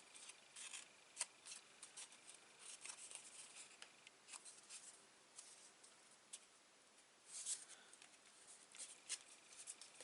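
Faint rustling and small clicks of cardstock and paper being handled and pressed into place, with a slightly louder rustle near the end.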